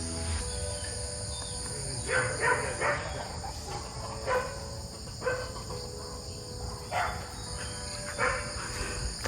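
Steady high-pitched chorus of tropical insects such as crickets or cicadas. Over it come short, sharp sounds roughly once a second, starting about two seconds in, which are the loudest thing heard.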